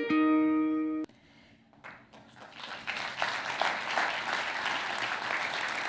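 A held chord of music cuts off about a second in. After a moment of near silence, an audience starts applauding and builds to steady clapping.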